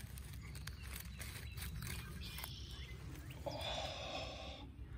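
Leaves and stems rustling, with small clicks and snaps, as a hand works through low ground plants and pinches a morel mushroom off at its base. About three and a half seconds in comes a louder hiss-like noise lasting about a second.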